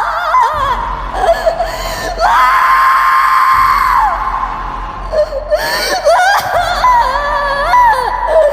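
A voice actor screaming and crying in a high, wavering voice: one long held scream from about two to four seconds in, then a run of shorter cries that swoop up and down in pitch.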